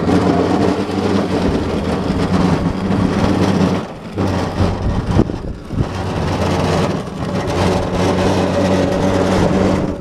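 Battery-powered garden tractor's electric drive running steadily under load as it moves through snow, a steady hum with overtones that dips briefly about four seconds in and stops abruptly at the end.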